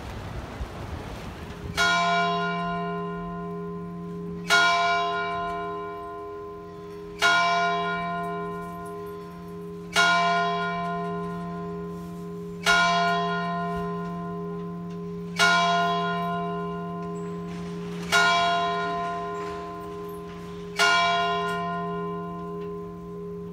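A single church bell tolling eight slow, even strikes about two and a half seconds apart, each stroke ringing on and fading before the next.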